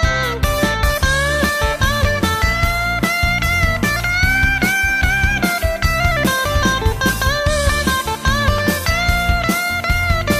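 Background music: a bending electric guitar lead over a bass and drum beat, blues-rock in style.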